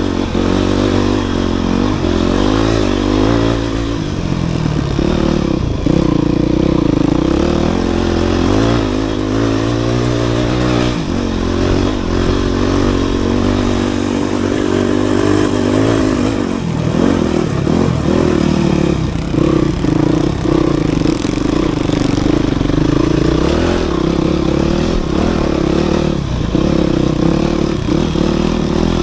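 Dirt bike engine running under load on a rough trail, its pitch rising and falling as the rider revs and changes speed, with occasional knocks from the bike over rocky ground.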